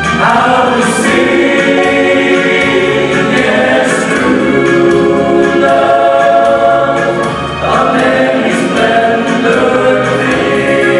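A seven-man male vocal group singing long held chords in close harmony.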